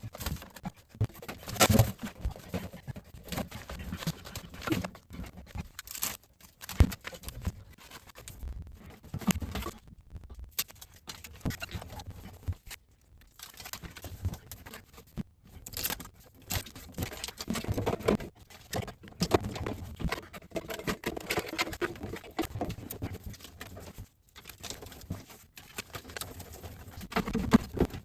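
Irregular knocks, clicks and rustling of hands-on handling work, broken by brief silent gaps between clips.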